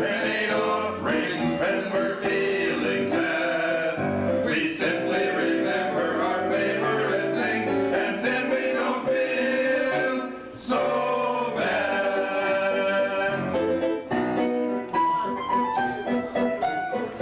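Music: voices singing a song over instrumental accompaniment.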